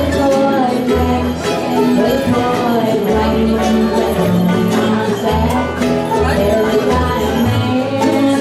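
Bluegrass band playing live: acoustic guitars, banjo and upright bass, with the bass notes plucked steadily underneath.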